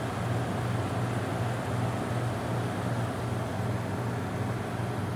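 An 18,000 BTU through-the-wall air conditioner with a Tecumseh AW series compressor running steadily. It makes a low, even hum under a smooth rush of air, quiet for a unit of its size.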